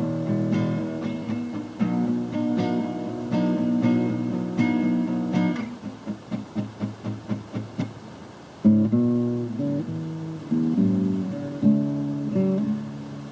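Acoustic guitar strummed in chords. About six seconds in the playing drops to a run of short, quick, quieter strokes, about five a second, then full strumming comes back sharply near nine seconds.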